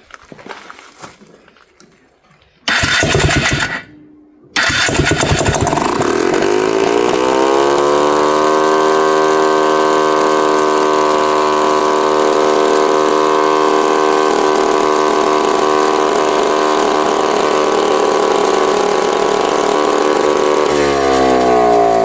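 Polaris 300 two-stroke ATV engine, with no muffler, starting: a short loud burst about three seconds in, then it catches a second later, revs up and runs at a steady high speed, its pitch falling near the end. It keeps running because the kill switch is disconnected, so it won't shut off.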